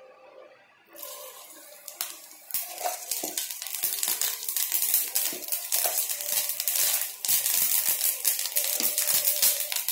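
Hot oil sizzling and crackling in a frying pan as spices fry around dried red chillies. It starts quietly and grows from a couple of seconds in into dense popping over a steady hiss.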